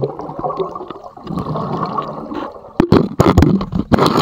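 Muffled water sloshing and bubbling heard underwater as a camera in its housing plunges into a pool. From about three seconds in come several loud knocks.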